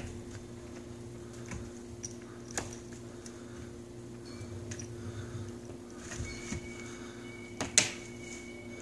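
Scattered light taps, scuffs and clicks of a cat batting and grabbing at a feather wand toy on a carpeted shelf, with a sharper knock near the end, over a steady low hum.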